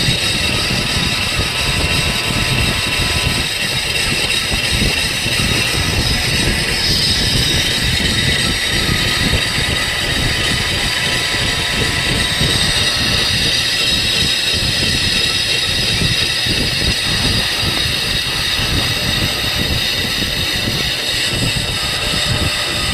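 Machinery running steadily: a continuous low rumble with several steady high-pitched whining tones over it.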